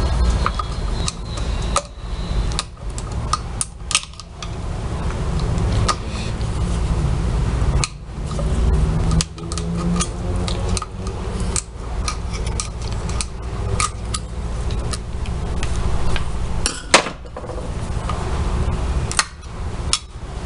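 Hand tools clicking and knocking against the metal parts of a Whirlpool washing machine transmission being taken apart, in irregular sharp clinks over a steady low rumble.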